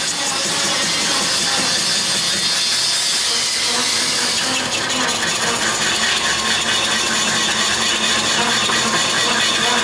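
Metal lathe turning a crankshaft: a steady hissing, scraping cutting noise over the running machine, with a fast rhythmic ticking coming in about halfway through.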